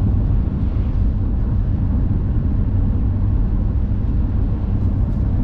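Truck driving along: a steady low rumble of engine and road noise, heard from inside the cab.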